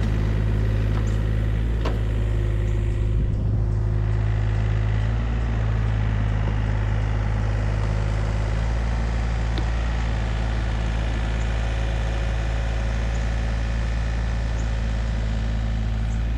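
Excavator's diesel engine running steadily with a deep, even sound. There are a few light knocks, one about two seconds in.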